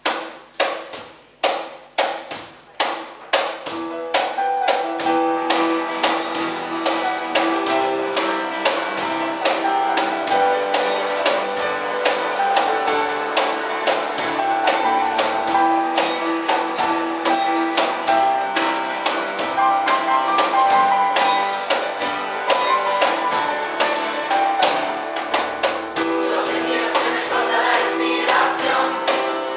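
A live school band and choir playing a Latin pop song. It opens with sharp, evenly spaced beats about every half second, then the keyboards and the rest of the band fill in, and voices come in near the end.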